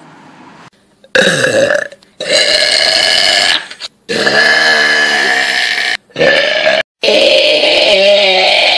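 A run of about five long, loud burps, each lasting up to two seconds with short breaks between, starting about a second in.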